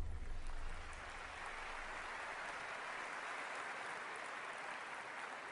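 Audience applauding, a steady clapping that slowly fades, as the last low note of the music dies away in the first second.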